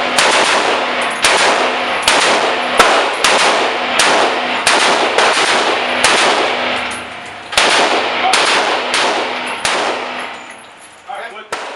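About fourteen single gunshots from a shoulder-fired long gun, fired one after another most about half a second to a second apart, with a short pause near the middle; each shot rings on with echo.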